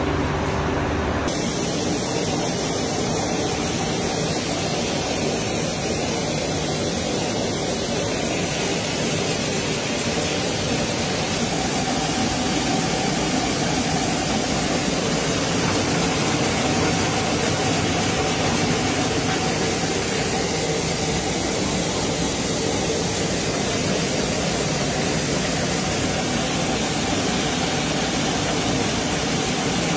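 Sago pearl processing machinery running with a steady, loud mechanical din and a faint hum, the deeper hum dropping away about a second in.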